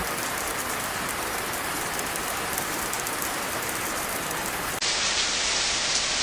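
Heavy rain falling in a steady hiss; a little under five seconds in it cuts abruptly to a louder recording of rain.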